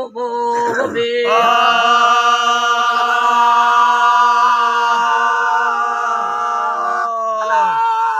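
Sindhi faqeer raag singing by men's voices: after a brief break, one long note is held steady for about six seconds, then slides down and ends near the end as the next phrase begins.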